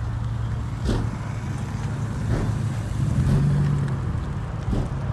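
Cars rolling slowly past at low revs, a black coupe with a large aftermarket exhaust tip and a Ford Mustang: a steady low exhaust rumble that swells briefly about three seconds in, with a few short sharp knocks.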